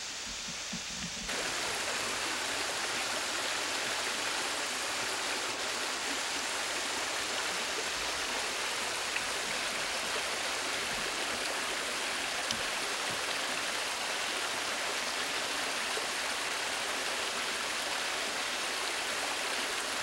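Small creek rushing and bubbling over rocks and stones in a shallow riffle. The steady water noise grows louder about a second in.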